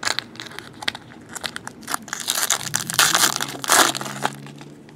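Foil wrapper of a Select hockey card pack being torn open and crinkled by hand, in quick crackling bursts that are busiest from about two to four seconds in.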